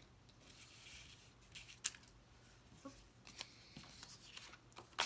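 Cut cardstock pieces being handled on a work surface: soft paper rustling with a few sharp taps, the loudest about two seconds in and another at the end.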